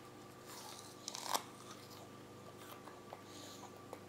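A toddler biting into a whole green apple, a crisp crunch about a second in, then chewing with a few faint clicks.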